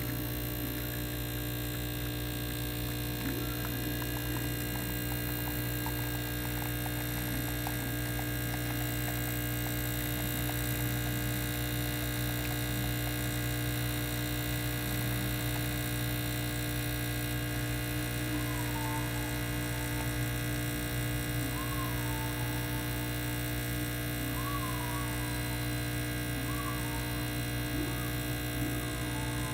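Pasquini Livia 90 espresso machine's vibratory pump running steadily under pressure as a shot is pulled: an even, unbroken hum with no change in pitch.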